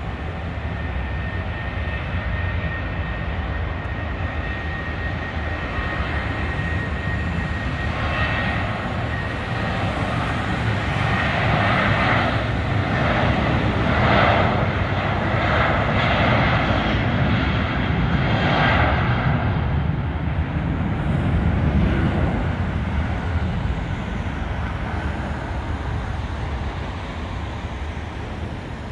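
Boeing 737-700's CFM56-7B turbofan engines at takeoff thrust during the takeoff roll. A steady whine at first, then louder from about ten seconds in as the jet rolls past, fading as it lifts off and climbs away.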